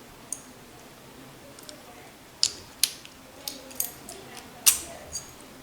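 Keys clinking and being worked in a Lockwood Assa Abloy 334 lock: a scattered series of sharp metallic clicks and small jingles as the key goes in and the cylinder is turned.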